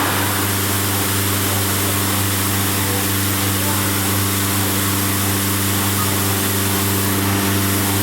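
Vacuum pump of a CNC router's hold-down table running with a loud, steady hum and hiss.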